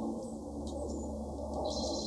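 Small songbirds calling: a few short, high chirps, then a brief high trill near the end, over a steady low background noise.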